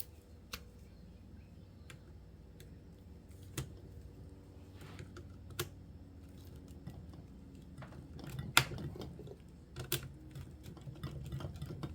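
Irregular small clicks and taps of a hex driver and metal pin against the hub of an Arrma Big Rock RC truck as the pin is worked out; the loudest click comes about two-thirds of the way through.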